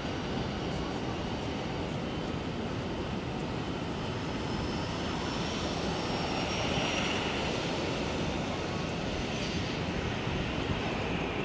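Airbus A320-214's CFM56 turbofan engines running at taxi power as the airliner taxis: a steady jet rumble with a faint high whine that rises slightly partway through and swells a little about seven seconds in.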